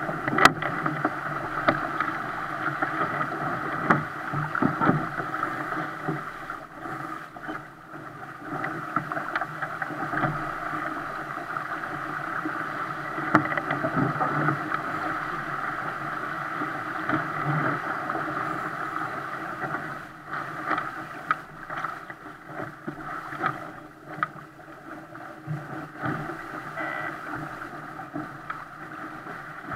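Water rushing and splashing along the hull of a 470 racing dinghy sailing upwind, swelling and easing as the bow meets the waves, with a sharp knock about half a second in and a few lighter knocks later.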